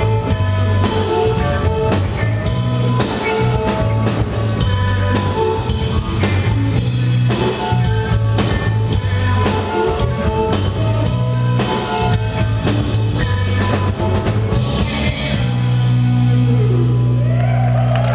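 Live band playing an instrumental passage on electric guitars and drum kit with a steady bass line. About fifteen seconds in the drums stop and the band holds a long closing chord over a sustained low note, with a guitar line sweeping upward as it rings out.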